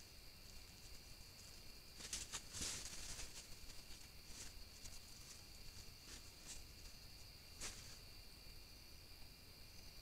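Faint, steady high-pitched trilling of night insects, with light rustles and crackles in dry banana leaf litter as crab-eating raccoons forage. There is a cluster of rustles about two to three seconds in and single ones later.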